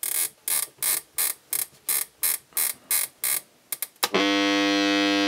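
Toshiba RC-803F flip clock radio's alarm-setting wheel clicking through its detents, about ten clicks at roughly three a second, as it is turned toward the set time. About four seconds in, the alarm goes off in a loud, steady electric buzz.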